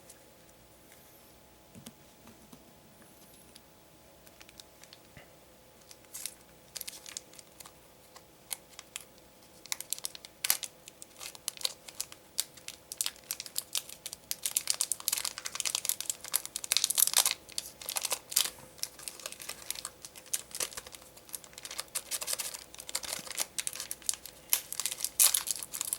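Foil booster-pack wrapper of Digimon trading cards being crinkled and torn open. It is faint at first, and the crinkling thickens to dense crackling from about ten seconds in.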